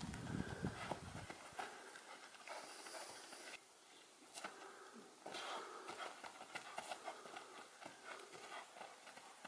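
Light, irregular thuds of running footsteps and football touches on a grass lawn, faint and uneven, with a low rumble in the first second or so.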